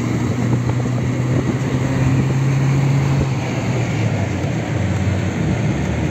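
Car engine and road noise heard from inside the moving car's cabin: a steady low engine hum that eases off after about three seconds.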